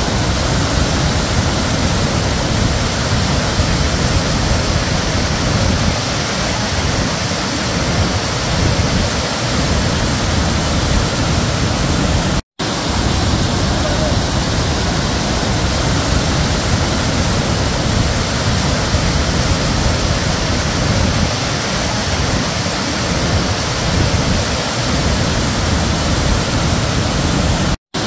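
Nugget Falls, a tall waterfall of glacier meltwater tumbling over rock tiers, rushing with a loud, steady roar. The sound cuts out for an instant twice, about twelve seconds in and again at the end.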